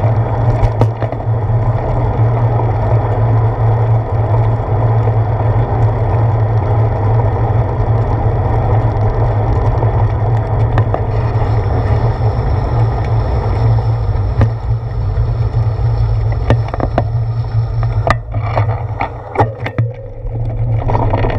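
Steady wind and tyre rumble picked up by a handlebar-mounted GoPro on a moving bicycle. It eases off near the end as the bike slows to a stop, with a few clicks and rattles.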